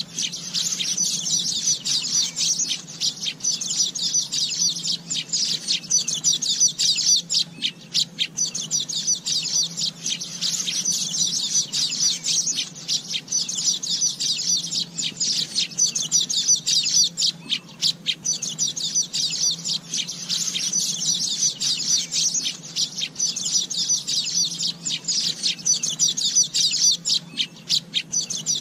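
Asian golden weavers chattering: a dense, continuous stream of fast, high-pitched chirps and trills, with a few short lulls.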